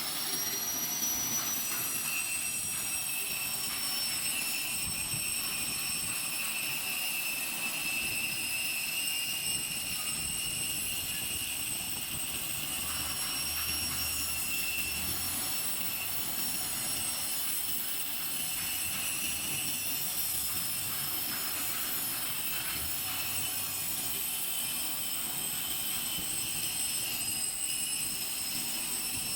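Grinder on a lathe running with a steady high-pitched whine, winding up to speed in the first second.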